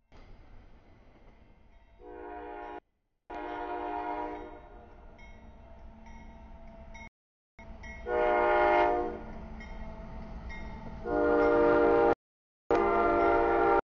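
Diesel freight locomotive air horn sounding five chord blasts for the grade crossing as the train approaches, each several notes together. The blasts grow louder towards the end over a low rumble, and the audio cuts out briefly a few times.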